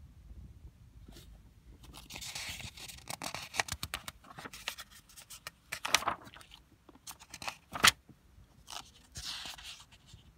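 Paper pages of an old desk diary being turned and flicked through: rustling and crackling paper with many small clicks, and two sharp snaps about six and eight seconds in.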